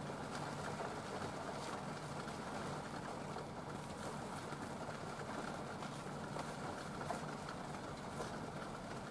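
Steady low hum and hiss of kitchen background noise, with a few faint crinkles from a plastic retort pouch of tomato sauce being squeezed out with chopsticks.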